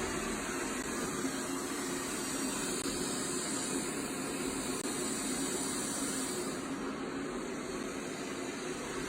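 Vrillo J050 robot vacuum cleaning, its suction fan and brushes giving a steady whir with a hiss above it.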